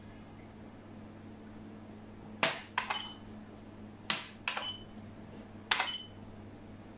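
Xiangqi pieces clacked onto a wooden board in three quick clusters of sharp clicks, each cluster about a second and a half after the last, the first starting about two and a half seconds in. A low steady hum lies underneath.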